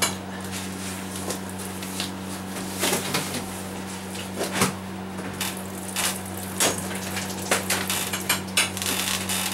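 Thin plastic fodder trays being handled and set onto growing shelves: a string of irregular light clatters and knocks. A steady low hum runs underneath.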